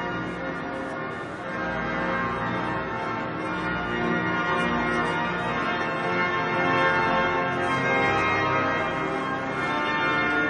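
Church bells pealing continuously, heard from inside the cathedral's nave.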